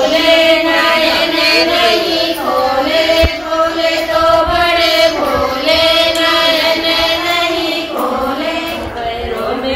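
Devotional chanting sung by voices, holding long, steady notes in phrases of about two to three seconds.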